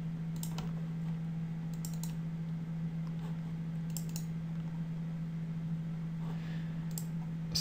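A few faint clicks of a computer mouse, some coming in quick pairs like double-clicks, over a steady low hum.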